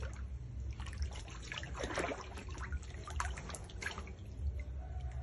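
An otter splashing as it rolls and paddles in shallow water on a concrete floor: irregular small splashes and drips, busiest about two seconds in and again a little later.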